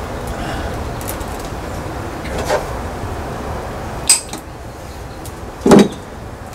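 Hand-work noises from fastening wiring in a bus engine bay: a few small clicks and rubs, then a louder knock near the end as a tool is set down on the tool tray, over a steady low background noise.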